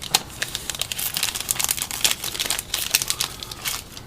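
Foil wrapper of a baseball card pack crinkling as it is handled and torn open, with irregular crackles.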